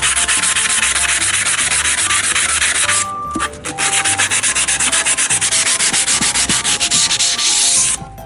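Hand sanding of a small metal bracket: quick back-and-forth abrasive strokes, several a second, scuffing the freshly made stay before it is painted. There is a short pause about three seconds in, and the strokes stop just before the end.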